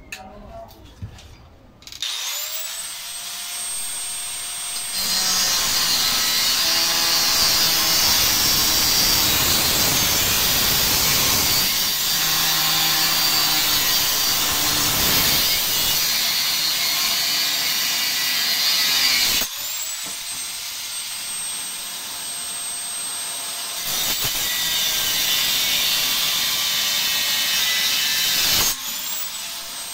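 Handheld angle grinder starting up about two seconds in with a rising whine, then cutting into a steel gas cylinder with a loud, steady grinding. Twice it eases off and winds up again, about two-thirds of the way through and near the end.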